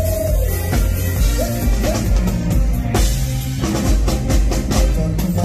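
Live band music with a drum kit, steady bass and a melody instrument playing an instrumental passage, with no singing.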